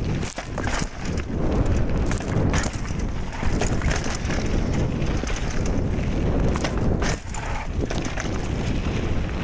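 Mountain bike riding down a dirt singletrack, recorded on a phone: a steady rush of wind on the microphone and tyre noise, with frequent clattering and knocks from the bike over bumps.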